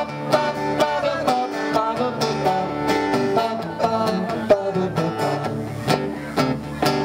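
Live acoustic band playing an instrumental break in a country-style song: plucked strings picking a steady rhythm over a bass line, with no singing.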